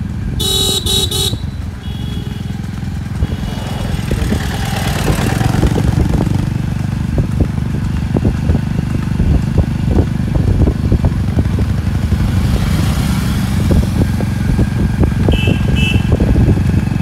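Motorcycle and scooter engines running steadily close by, with a vehicle horn honking briefly about half a second in and two short high beeps near the end. A run of short knocks comes from the trotting buffalo cart on the asphalt.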